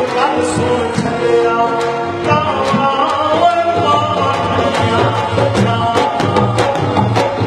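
A man singing a Punjabi folk song live into a microphone, with long held and gliding notes. Drum and sharp percussion strokes accompany him, growing stronger about halfway through.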